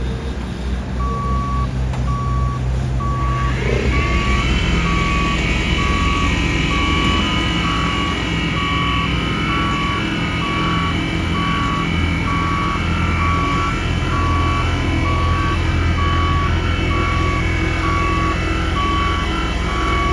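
Backup alarm on heavy paving equipment beeping about once a second, over the steady rumble of a diesel engine. From about three and a half seconds in, a rising mechanical whine joins and holds steady.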